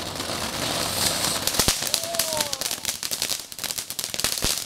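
Fireworks crackling: a dense stream of rapid sharp pops, with two louder bangs, one about a second and a half in and one near the end.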